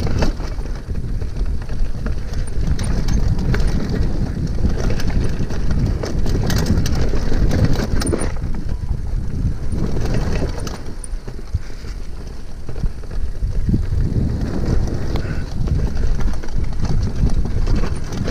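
Mountain bike riding fast down a dirt trail: tyre noise on dirt and loose stones, with frequent clicks and knocks from the bike rattling over bumps, under a heavy rumble of wind on the microphone.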